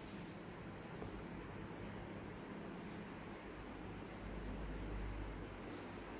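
Crickets chirping: a steady high-pitched trill that swells in even pulses about every two-thirds of a second. A soft low rumble comes in about four seconds in and fades near the end.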